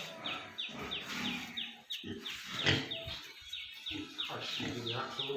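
Farm animal noise from Yorkshire pigs, with irregular grunting and squealing, over a short, high, falling chirp that repeats about three times a second.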